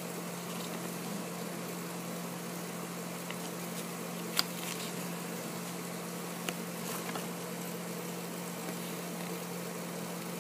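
Steady low hum and hiss of room background, with a couple of faint clicks as a folded paper checklist is handled.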